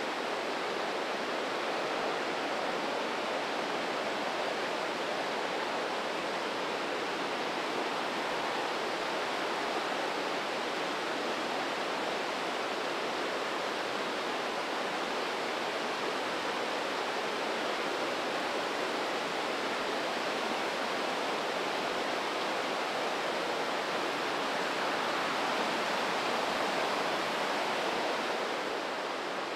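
The Breitach river rushing through its narrow rocky gorge: a steady, unbroken rush of white water.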